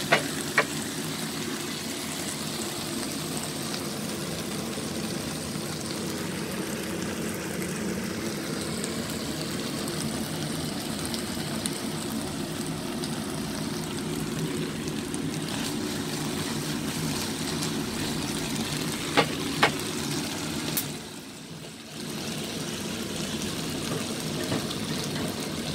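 Chicken pieces sizzling steadily in oil and cooked-down adobo sauce in a nonstick wok, the sauce nearly reduced away. There are two sharp clicks about three quarters through, and the sizzle briefly drops away soon after.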